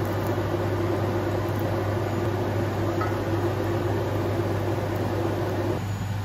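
A steady low mechanical hum, with a second, higher drone over it that cuts off about a second before the end.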